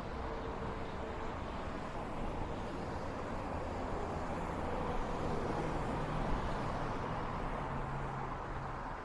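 Highway traffic noise: a steady rumble of tyres and engines, swelling a little in the middle as a vehicle draws near and passes.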